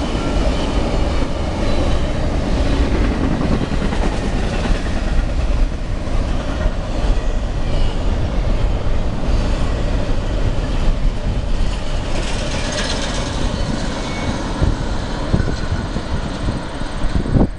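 CSX double-stack intermodal freight train rolling past close by: the steel wheels of the container cars on the rails make a steady, loud rumble that goes on without a break.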